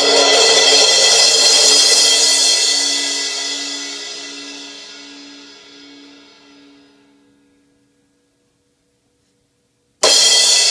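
Zildjian ZHT 17-inch Fast Crash cymbal ringing out after a hit and slowly dying away to nothing, then struck again sharply near the end and ringing once more.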